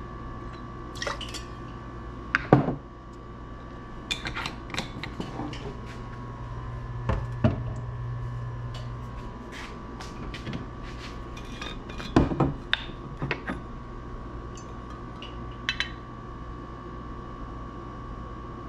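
Stainless steel jigger and shaker tin clinking, and glass liquor bottles knocking on a stone counter, while spirits are measured and poured. Scattered sharp knocks, the two loudest about two and a half seconds in and about twelve seconds in.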